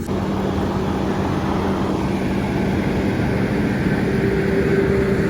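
Combine harvester running steadily through a soybean field: a loud, even machine noise with a low engine hum underneath.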